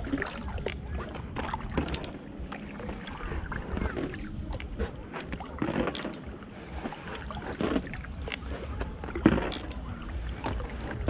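Ivolga extended packraft being paddled: paddle strokes about every two seconds with water splashing, over a steady low rumble. A sharp knock about nine seconds in is the loudest event.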